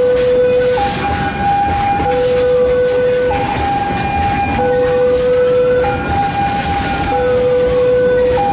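Electronic two-tone warning alarm of a railway level crossing, a low tone and a high tone taking turns about every second and a quarter, over the rumble of rail traffic.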